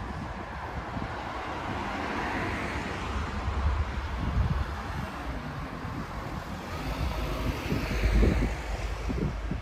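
Street traffic: cars passing on the road, their tyre noise swelling twice, over a low rumble of wind on the microphone.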